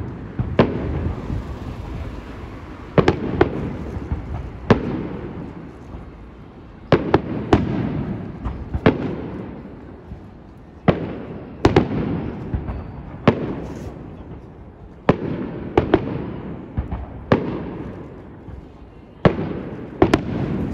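Fireworks display with aerial shells bursting in quick succession: a sharp bang every second or two, often two close together, each followed by a low rolling rumble and echo.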